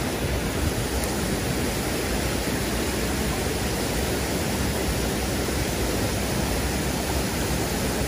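Waterfall pouring into a rocky plunge pool: a steady rushing of falling water.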